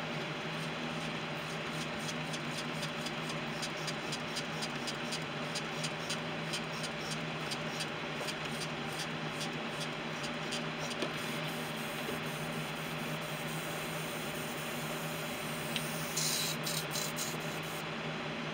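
A steady mechanical whir with a low hum, the workshop's ventilation running. Faint quick ticks come about three a second through the first half. A brief spray of air from an airbrush comes about sixteen seconds in.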